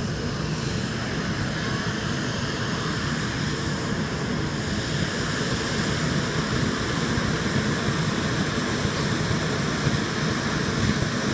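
Hand-held tezutsu (bamboo-tube) firework spraying a fountain of sparks: a steady, unbroken rushing hiss of burning gunpowder jetting from the tube.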